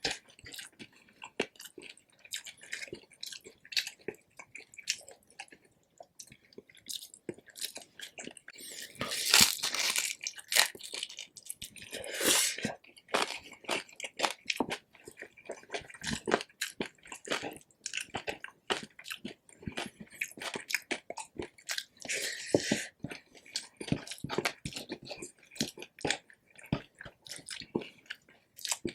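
Close-miked chewing and biting of crispy pork belly: a steady run of sharp, crackly crunches from the crisp skin, with a few louder, longer crunches along the way.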